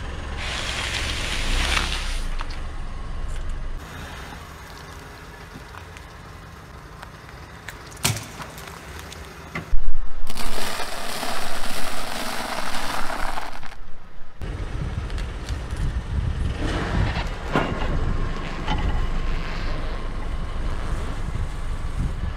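A car tyre rolling slowly over objects and crushing them in turn: crunching and cracking, with a sharp crack about eight seconds in. The loudest and longest crunch, from about ten to fourteen seconds, is brittle dry noodles breaking under the tyre. A low noise from the car runs underneath later on.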